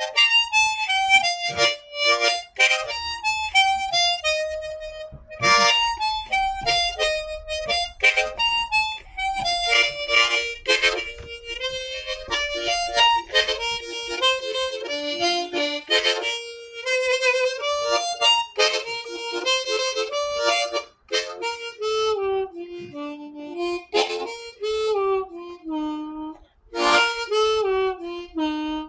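B-flat diatonic harmonica played solo in first position: an old-time melody of single notes stepping up and down the major scale, with a few short, sharp accents between phrases.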